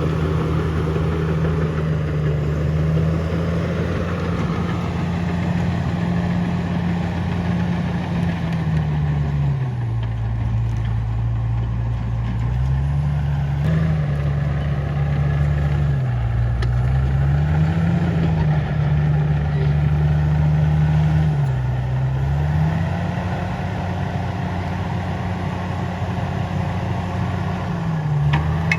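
Komatsu D68ESS bulldozer's diesel engine running hard under load, its pitch dropping several times and climbing back as it lugs pulling a heavy log.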